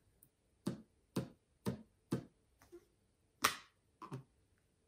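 Plastic baby bottle handled in the hands, giving a series of about seven short, sharp clicks and taps, roughly two a second, the loudest about three and a half seconds in.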